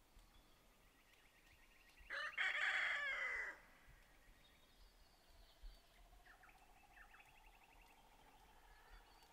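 A rooster crowing once, about two seconds in, for about a second and a half, its call falling in pitch at the end. Faint high trills come before and after it.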